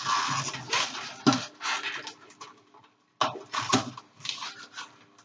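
Auger juicer crushing pieces of mature coconut meat: irregular crunching and cracking over a faint steady motor hum, with a brief pause a little past halfway.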